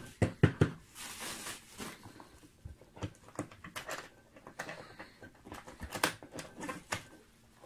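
Plastic bubble wrap crinkling and rustling as it is pulled back from a hard case, with a run of sharp clicks and knocks from handling the case and its metal latch, the loudest in the first second.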